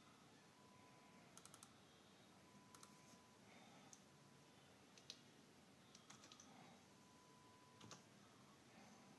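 Faint clicks of a computer keyboard and mouse, scattered single clicks and short quick runs of three or four, against near-silent room tone.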